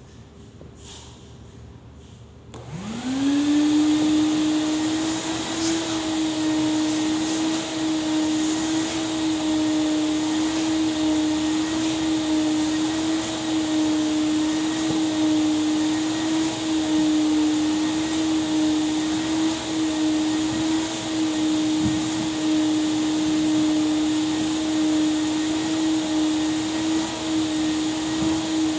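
Vacuum cleaner switched on about two and a half seconds in: the motor spins up with a quick rising whine, then runs steadily with a loud hum and a rush of air.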